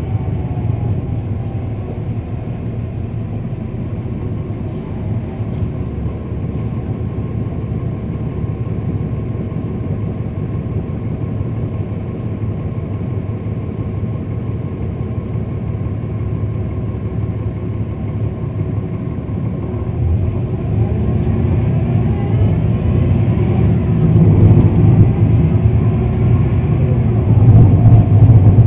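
Cummins ISL9 diesel engine of a 2010 NABI 40-foot suburban transit bus, heard from on board with a steady low rumble while the bus rolls along. Over the last third it grows louder and its pitch climbs as the bus accelerates.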